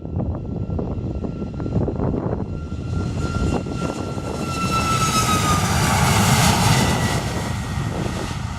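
Boeing 737 MAX 8's CFM LEAP-1B jet engines passing during departure: a rising roar with a high fan whine that drops in pitch as the jet goes by, loudest about six to seven seconds in.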